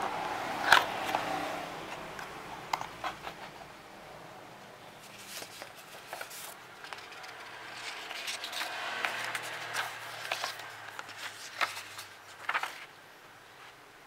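Handling of a keyboard's cardboard box and its paper user manual: scattered scrapes and taps as the lid is worked open, then paper rustling as the manual is taken out and leafed through. The loudest is a knock about a second in.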